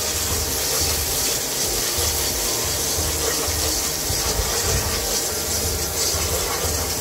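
Wooden spatula scraping and stirring thick masala paste and chili powder around a non-stick pot in repeated strokes, over a steady sizzle of the paste frying in oil.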